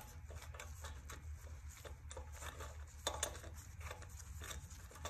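Faint small metal clicks and scrapes as a replacement carburetor is worked by hand along its two mounting bolts onto the engine, with a slightly sharper click about three seconds in. A steady low hum runs underneath.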